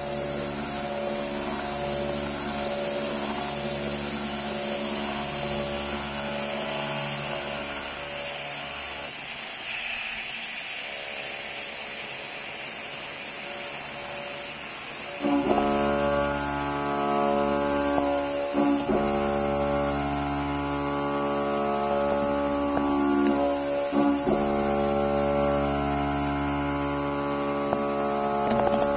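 End mills cutting 1.2379 tool steel on a CNC machining centre: a steady cutting whine made of several held tones, which drops away for a few seconds in the middle and comes back suddenly about fifteen seconds in.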